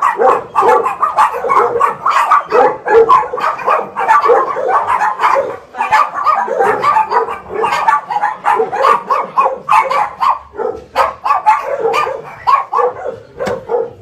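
Many crated dogs barking nonstop, the barks overlapping several times a second.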